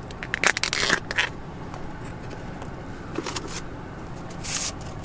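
Thin plastic lid being pried off a round takeout deli container, a quick run of crackling clicks about a second long, with a brief rustle near the end.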